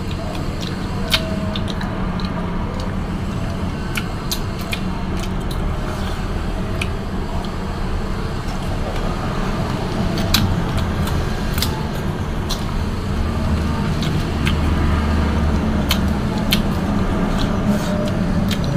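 Steady hiss and rumble of heavy rain, with scattered sharp clicks and crunches of people biting and chewing raw fruit.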